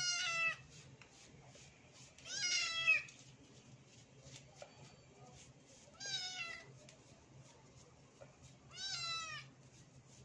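Young kitten meowing four times, about three seconds apart, each meow short and high-pitched: crying in protest at being bathed and scrubbed.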